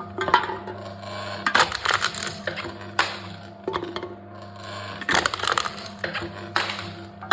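Aluminium drink cans being crushed by a machine: the thin metal crunches and crackles several times over, with a steady low hum underneath.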